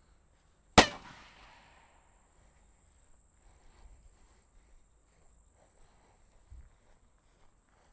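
Side-by-side shotgun with freshly re-soldered barrel ribs firing a single shot from a test stand, a sharp blast about a second in that dies away over about a second. The shot is a proof test of whether the soldered ribs hold.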